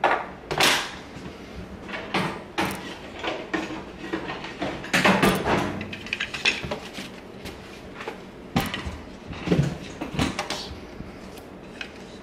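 Handling noise on a workbench: irregular knocks, clacks and bumps as a foam pad is lifted off a rubber tray and two wooden boards are picked up and set down.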